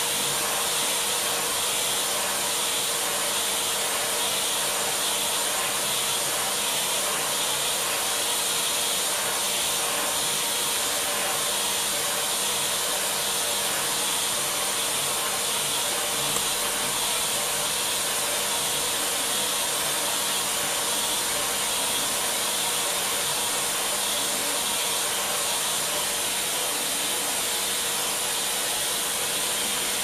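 Vacuum cleaner running steadily, a constant rushing hiss over an even motor hum, its hose nozzle drawing air over a duck's feathers.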